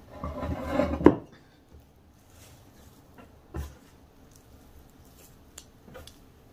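A ceramic mixing bowl pushed across a wooden butcher-block counter, ending in a sharp knock about a second in. Then bread dough being kneaded by hand on the floured board: a soft thump midway and a few faint pats.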